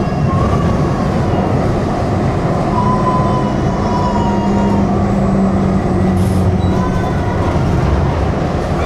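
Electric tram running along its track, heard from inside the passenger car: a steady rumble of wheels on rail with the traction motors' whine drifting up and down in pitch, and a brief hiss about six seconds in.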